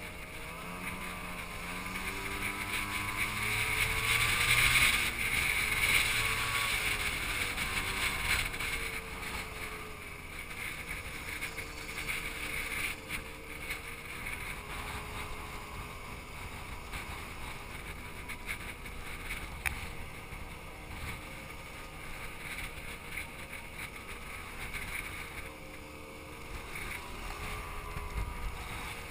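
Motor scooter's small engine running on the road, its pitch rising and falling with the throttle, with wind rushing over the microphone. Loudest a few seconds in.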